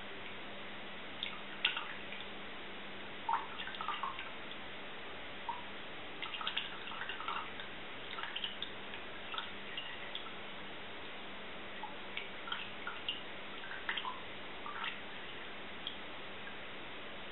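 Iced water dripping slowly from a carafe into a glass of green absinthe: irregular small drips and plinks, the slow drip that turns the absinthe cloudy.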